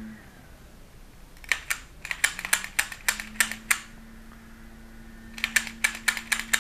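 Reassembled 1911 A1 pistol clicking as it is handled and its parts are worked: two quick runs of sharp clicks, one starting about a second and a half in and one near the end.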